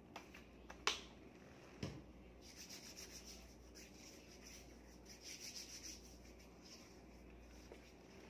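Hands rubbing together briskly, a quick back-and-forth hiss lasting a few seconds, after a sharp plastic click about a second in and a knock about two seconds in as the bottle is handled.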